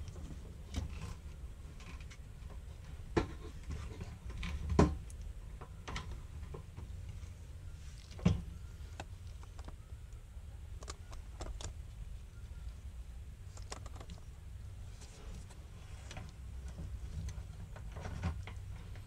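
Scattered plastic clicks and knocks as a fuel pump and level-sender assembly is handled in the fuel tank opening, the sharpest about three, five and eight seconds in, over a low steady rumble.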